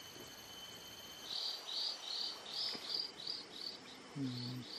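Insects calling: a thin, steady high-pitched drone, joined about a second in by a regular high chirping of about three chirps a second.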